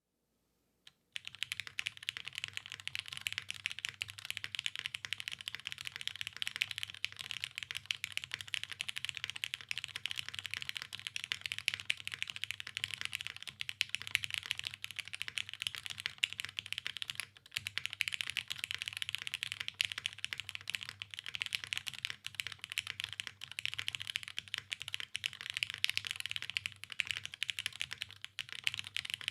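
Continuous fast typing on a custom mechanical keyboard: Cherry MX Black linear switches (lubed, filmed, 68 g springs) on an undampened, top-mounted aluminium plate, with GMK keycaps. The keystrokes clatter densely after about a second of silence, with one brief pause about halfway through.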